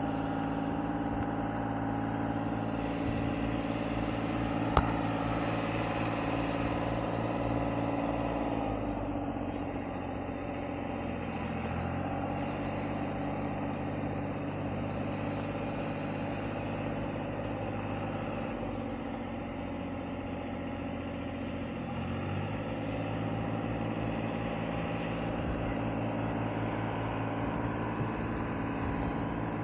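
A steady motor drone with a low hum. Its pitch drops for a few seconds twice and then comes back up. A single sharp click sounds about five seconds in.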